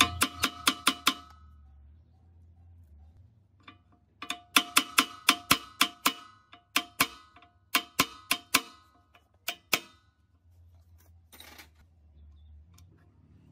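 Steel punch rod struck with a hammer against a rusted air-compressor valve plate, in quick runs of sharp metallic strikes with a short ring, about five a second, to knock the seized plate loose from the pump head. A brief scrape comes near the end.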